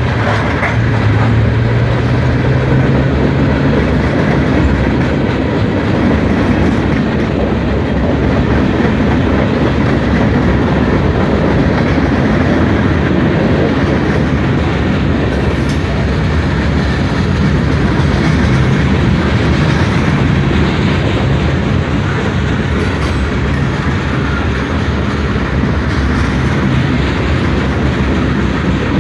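Freight train cars rolling past at close range: a loud, steady noise of steel wheels on rail and rattling cars. A low engine drone from the trailing diesel locomotive fades out over the first few seconds.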